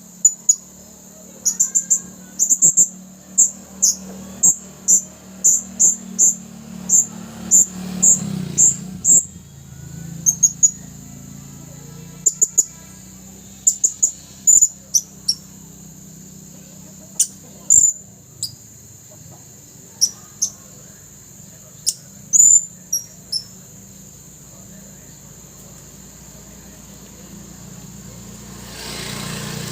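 Male blue-crowned hanging parrot (serindit) calling with short, very high, thin chirps: a quick regular series of about two a second, then scattered single chirps that stop about three-quarters of the way through. A low steady hum runs underneath.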